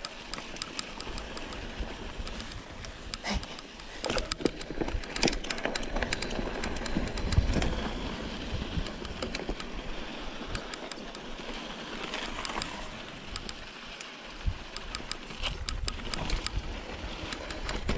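Mountain bike riding down a dusty, rocky dirt singletrack: tyres rolling and crunching over dirt and stones, with frequent irregular clicks and knocks as the bike and camera rattle over the bumps, and wind rumbling on the microphone.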